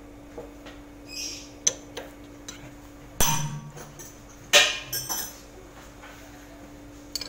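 Steel spanner clinking and clanking on the metal gearbox and drain bolt of a spice-mixing machine, several separate sharp strikes with short ringing, the loudest about three and four and a half seconds in.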